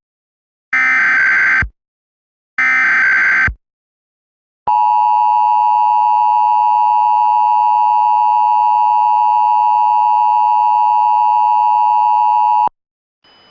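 Emergency Alert System tones announcing a required monthly test: two one-second SAME header data bursts about a second apart, then, after a short pause, the steady two-tone attention signal, held for about eight seconds and cutting off sharply.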